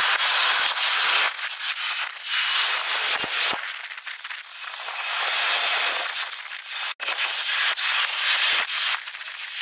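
Jet airliner takeoff noise sped up four times, heard as a loud, shifting rushing hiss with almost no low rumble, from a Japan Airlines Airbus A350 taking off. It cuts out for an instant about seven seconds in, then resumes.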